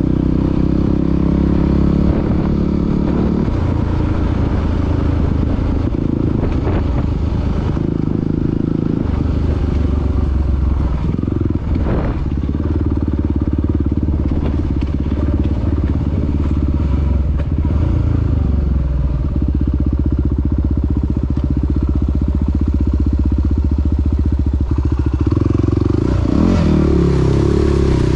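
Yamaha WR250R's 250 cc single-cylinder four-stroke engine running under way, its revs rising and falling with the throttle, and climbing near the end.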